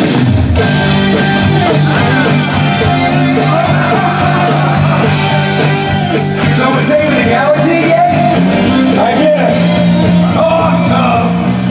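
Loud show soundtrack music with singing over sustained bass notes.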